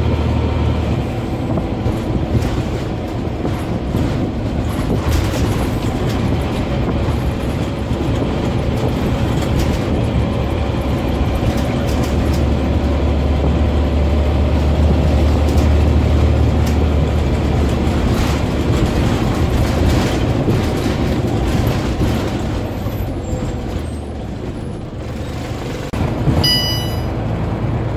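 Scania N94UB OmniCity bus heard from inside the saloon: its 9-litre five-cylinder diesel engine and running gear rumble steadily as it drives along, the low drone swelling for several seconds about halfway through. A brief high tone sounds near the end.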